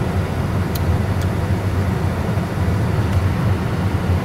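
Steady low hum and rush of an Airbus A320 full flight simulator's cockpit, with two sharp clicks about a second in from knobs on the glare shield panel being set.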